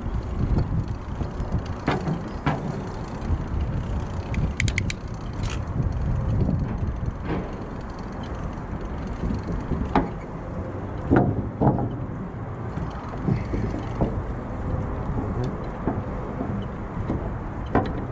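Bicycle riding on a paved trail, heard from a chest-mounted action camera: a steady low rumble of wind and tyre noise, with scattered clicks and knocks from the bike rattling and a few brief high ticks about five seconds in.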